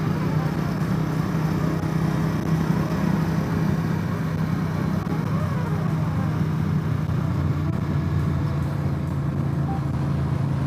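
Motorcycle engine running steadily at highway speed, heard from the rider's seat over a steady rush of road and wind noise.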